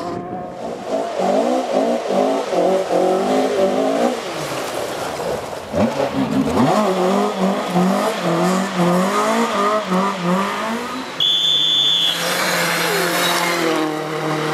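Rally car engine revving hard on a stage, its pitch climbing and dropping over and over as the driver works the throttle and gears. Near the end comes a brief high steady whistle-like tone, then a burst of hiss.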